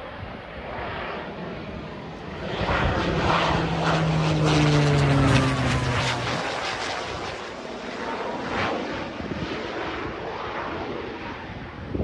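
Single-engine firefighting air tanker flying low overhead. Its propeller and engine drone grows louder, peaks about five seconds in, drops in pitch as it passes, and then fades.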